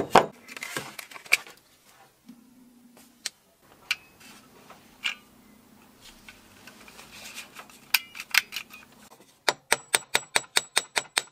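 Plastic tool-housing parts handled on a bench, with scattered clicks, knocks and rustles. About two seconds before the end, a small hammer starts tapping quickly and evenly, about five light strikes a second, on copper wire on the steel anvil of a bench vise, each strike ringing briefly.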